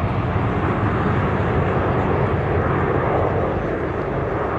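Jet noise from a formation of Aermacchi MB-339 jet trainers passing overhead, a steady rumble from their Rolls-Royce Viper turbojets. It eases off slightly near the end.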